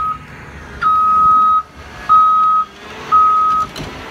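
Backup alarm on construction machinery beeping: a steady high single-tone beep three times, about once a second, with the first beep longer than the others. Low engine rumble runs underneath.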